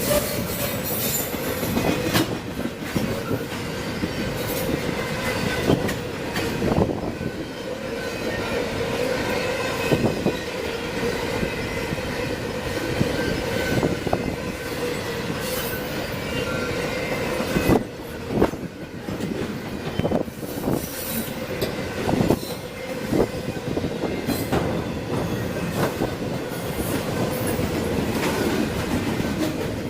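Freight train cars rolling past on steel rails, their wheels squealing with a steady tone and knocking over rail joints at irregular intervals.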